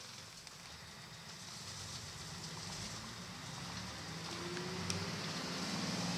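Toei city bus's engine heard from inside the passenger cabin, growing louder and rising in pitch as the bus pulls away and accelerates. A short sharp click about five seconds in.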